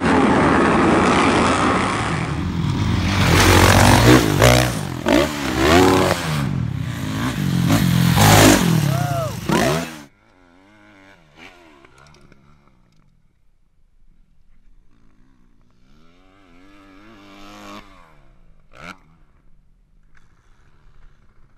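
Several motocross dirt bikes revving hard together, engines rising and falling in pitch over one another. About ten seconds in the sound cuts abruptly to a single dirt bike much fainter and farther off, revving up and down as it rides a track.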